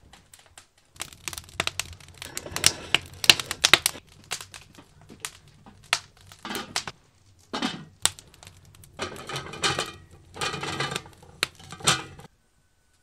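Wood fire crackling and popping in an open brick grill hearth: dense, irregular sharp snaps with a few duller knocks. It cuts off suddenly near the end.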